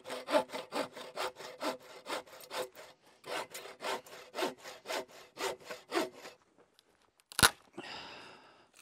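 Bow saw cutting through a log with quick back-and-forth strokes, about four a second, the blade carrying a faint ringing tone. The sawing stops about six seconds in, followed by a single sharp knock and some rustling.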